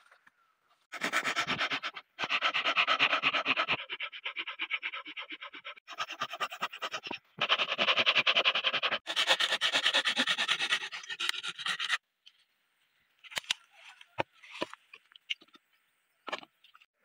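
Hand saw cutting into dry, dead wood in fast rasping strokes, in several runs with short pauses. Then a scatter of sharp cracks and snaps as pieces of dry wood are broken off.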